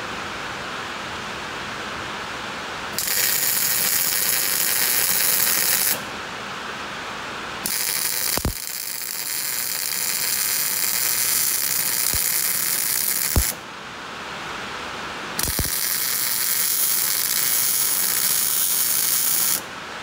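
MIG welder crackling in three runs of a few seconds each, welding the steel roll-bar hoop's support tubes to the car body.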